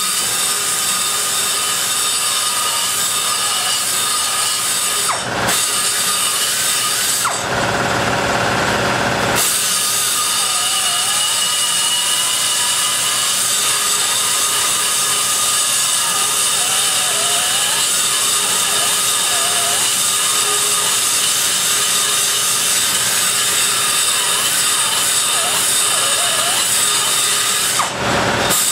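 High-speed die grinder running a rotary bit inside a big-block Chevy cylinder head's exhaust port, cutting away port metal in a continuous high whine whose pitch wavers as the bit loads and unloads. Near eight seconds in the sound turns lower and duller for about two seconds, then the whine returns.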